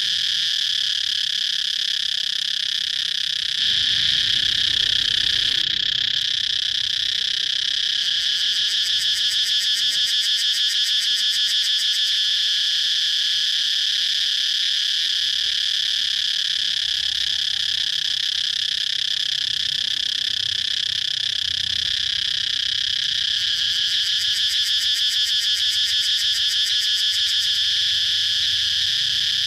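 Cicadas singing: a continuous high-pitched drone that pulses rapidly for a few seconds twice.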